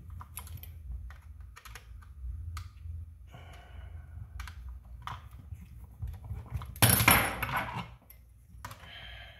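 Small clicks and taps of screws and small parts being handled while working on an RC car's suspension arms, with a louder rattling clatter about seven seconds in.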